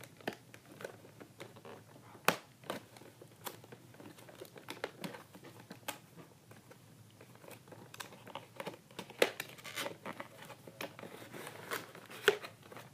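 Toy packaging being opened by hand: irregular crinkling and rustling of plastic packaging with scattered sharp clicks.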